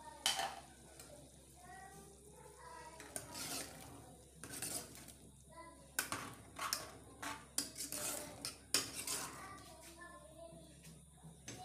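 Steel ladle stirring thick cooked mung daal in an aluminium pressure cooker, clinking and scraping against the pot's sides. The knocks come one at a time at first and crowd together in the second half.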